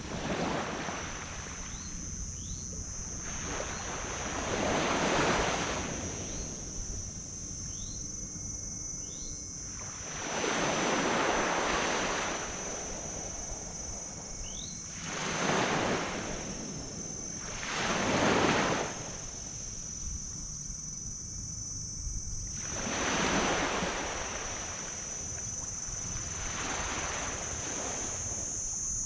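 Small tropical waves breaking on a black sand beach, each wash swelling and fading every few seconds.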